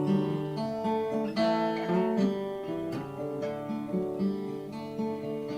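Acoustic guitar playing an instrumental passage between sung verses, with plucked notes and light strumming.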